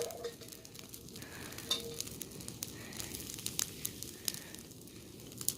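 Dry grass burning, crackling with irregular sharp pops and snaps over a low, steady rush.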